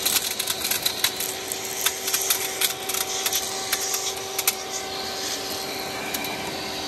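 Household vacuum cleaner running with a steady whine while its nozzle sucks up pieces of shattered side-window glass, which rattle and click sharply through the hose for the first four and a half seconds; after that only the steady motor sound remains.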